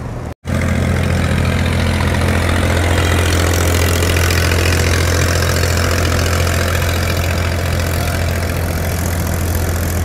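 Small double-drum road roller's engine running steadily close by, a loud low hum. It cuts in abruptly about half a second in, after a brief gap.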